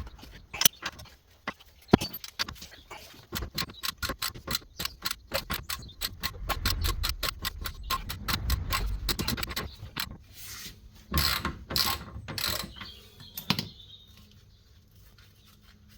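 Socket ratchet clicking in a fast, even run as a fastener is wound out, with a few sharp metal knocks before it and metal clanks of tools or parts after it.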